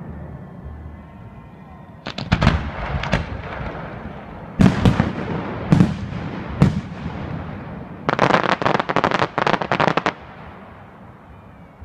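Aerial firework shells bursting overhead: a few sharp bangs from about two seconds in, the loudest bangs around the middle, then a rapid run of crackling reports for about two seconds near the end.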